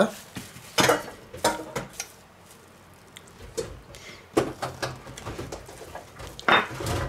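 Plastic cling film crinkling as it is pulled back from a chilled log of butter-rich cookie dough, then a kitchen knife cutting pieces off the log, with scattered short knocks and taps as the blade comes down on the silicone baking mat.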